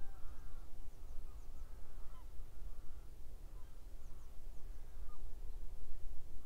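Faint birds calling across open country: a few short calls that bend in pitch, and some thin high chirps. A steady low rumble runs underneath.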